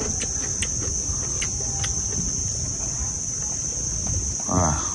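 Insects chirring steadily in one unbroken high tone over a low background hum, with a few faint clicks.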